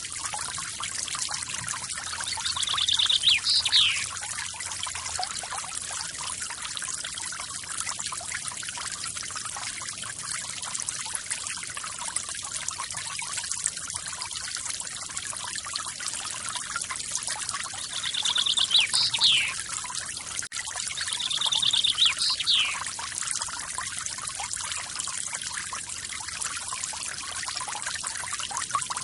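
Forest waterfall splashing steadily, with a small bird calling three times over it, each call a quick rapid trill followed by a falling note.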